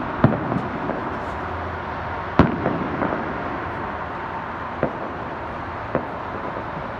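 Fireworks going off: a few separate sharp bangs, the loudest about two and a half seconds in, over a steady background rush.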